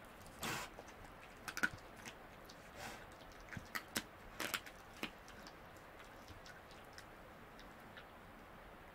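Tasmanian devil crunching on bone as it feeds. A scatter of sharp cracks and clicks comes over the first five seconds, and after that only a few faint ticks.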